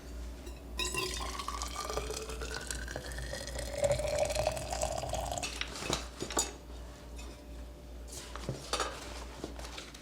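Hot water poured into a bottle, the pitch of the pour rising steadily as the bottle fills, then a few sharp clicks of the vessel being handled.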